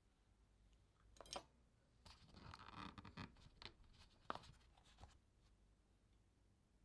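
Packaging being handled: rustling and scraping for a couple of seconds, with a few sharp clicks, from about a second in until about five seconds in.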